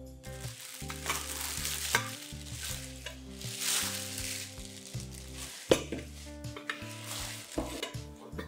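A thin plastic bag crinkling and rustling as it is pulled off a stainless steel Hario V60 gooseneck kettle, with a few light knocks of the kettle against the table. Soft background music plays underneath.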